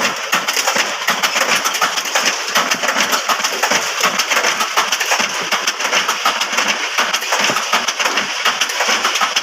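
Bamboo satay-skewer-making machine running, a dense, rapid, steady clatter of bamboo being worked.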